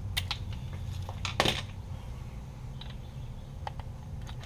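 A few sharp metallic clinks and knocks from hand tools and sockets being handled, including a short clatter about a second and a half in, over a steady low hum.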